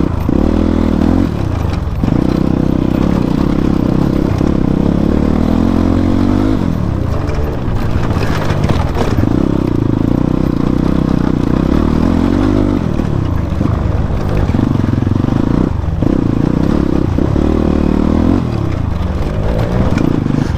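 Motorcycle engine running while riding on a rough track. The revs repeatedly dip and climb again several times.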